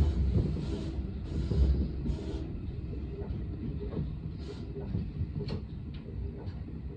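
Electric commuter train running, heard from the front of the train: a steady low rumble of wheels on rails, with a few sharp clicks over rail joints in the second half.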